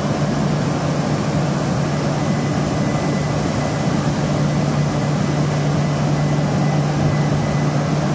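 Steady hum and rush of an E6 series Shinkansen trainset standing at the platform with doors closed, ready to depart, with a constant low drone.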